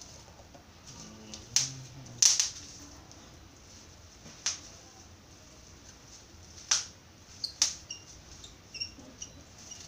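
Handling noise from a clip-on microphone and its cable: scattered sharp clicks and taps as the small clip and wire are worked by hand, with about five louder clicks among fainter ticks.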